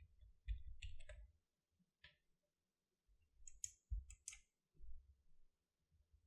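Faint, scattered clicks of buttons and controls being pressed on a colour-grading control panel, a handful spread over several seconds, with dull low thuds of hands on the hardware underneath.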